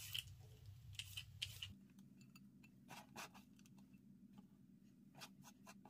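Faint scraping strokes of a julienne peeler shredding a carrot, a few in the first second and a half, then only scattered light ticks as the strips are handled.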